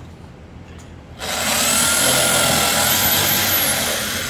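Corded electric drill starts about a second in and runs at speed into a pine board, with a steady motor whine; near the end the whine falls in pitch and fades as the drill slows.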